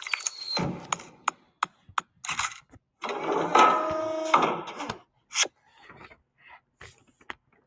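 Animated-logo sound effects: a quick run of clicks, ticks and scratchy scribbling sounds. About halfway through comes a louder stretch of a second and a half that carries a few held tones.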